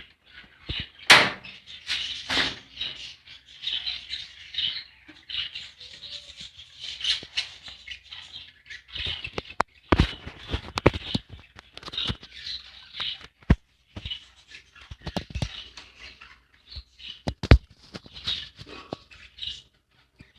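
Budgerigars chattering and chirping continuously in a cage, with scattered sharp clicks and taps from the birds moving about.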